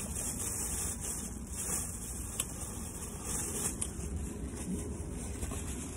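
Steady low hum inside a car, with a few faint clicks.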